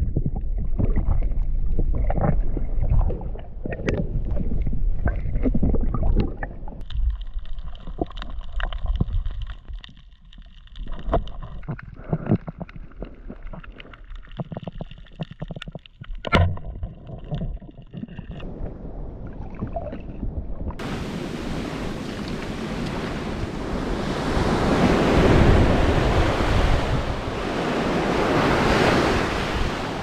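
Muffled underwater sound of a diver swimming over a coral reef: a low rumble of moving water with scattered clicks. About twenty seconds in it changes abruptly to surf breaking and washing up a sandy beach, with wind on the microphone.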